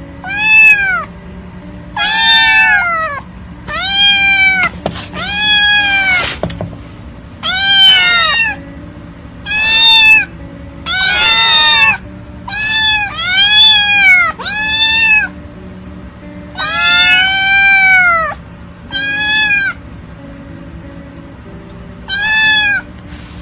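Kitten meowing over and over, more than a dozen short high-pitched meows, each rising then falling in pitch, with short gaps between them.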